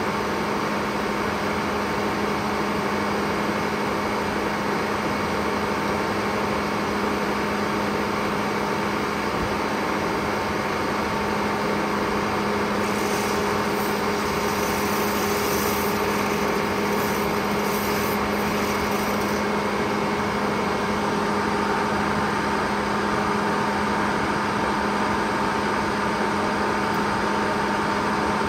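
Lane No. 1 circular sawmill and its power unit running steadily: a constant mechanical hum with a few fixed tones that holds level throughout.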